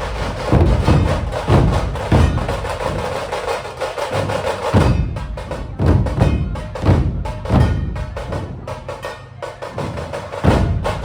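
Maharashtrian dhol-tasha ensemble playing: deep dhol strokes about once a second over a fast, continuous rattle of tasha drums.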